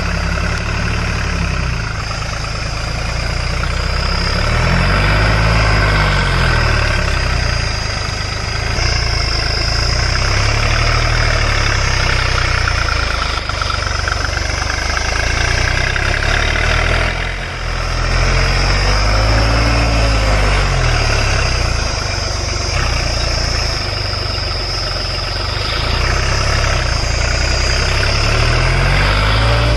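Deutz-Fahr Agromaxx 4050E tractor's three-cylinder diesel engine running hard under load as the tractor rears up on its rear wheels, pulling a nine-tine cultivator. Its pitch rises and falls several times, with a brief drop about two-thirds of the way through.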